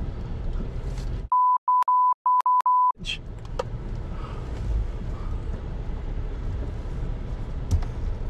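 A steady 1 kHz censor bleep, broken into several short pieces and lasting about a second and a half, covering a cuss word, with all other sound muted beneath it. Before and after it, the low rumble of a truck driving slowly, with a few light clicks.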